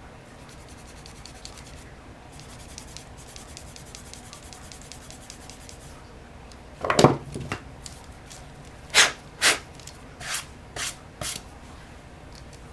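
Handwork on a fishing reel's handle: light, rapid rubbing strokes, then a loud knock about seven seconds in and five short, loud scrapes.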